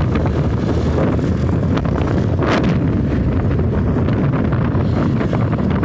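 Wind buffeting the microphone of a phone carried on a moving vehicle: a steady, loud low rumble, with a brief louder whoosh about halfway through.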